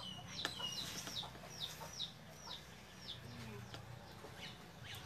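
Faint, high, repeated chirping of a bird: short falling chirps about three a second, fading out about three seconds in.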